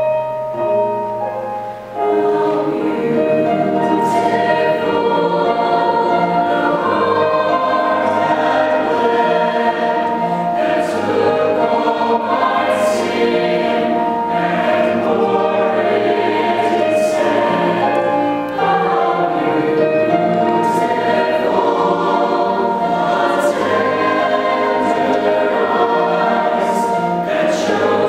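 Mixed choir of men's and women's voices singing a slow hymn in harmony, holding long chords, with the singers' 's' sounds landing together. There is a brief lull about two seconds in, then the singing swells back up.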